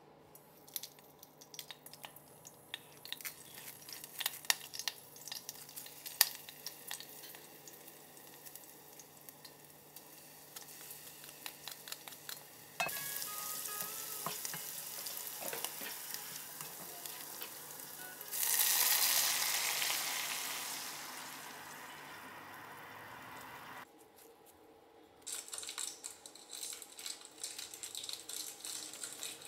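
Hot oil in a small enamel saucepan, first crackling with scattered pops, then sizzling steadily from about thirteen seconds in as it is stirred with a wooden spatula. A louder burst of sizzling about eighteen seconds in fades away and cuts off. Near the end a bouillon cube's foil wrapper crinkles as it is unwrapped.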